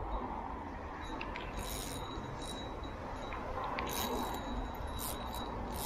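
Wind rumbling on the microphone over gently lapping sea water, with faint short high hissing strokes every second or so.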